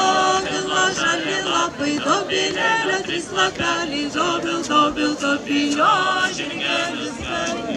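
A group of voices singing a Lithuanian folk round-dance song together, unaccompanied, in held notes that step up and down in pitch.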